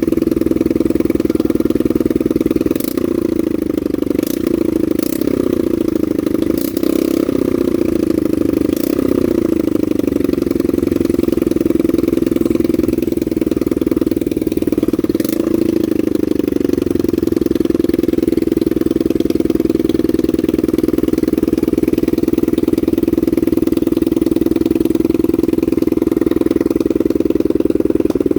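Honda NSF100's small single-cylinder four-stroke engine running at a steady idle, with a few short changes in revs and several sharp clicks between about 3 and 9 seconds in, and one more click about halfway through.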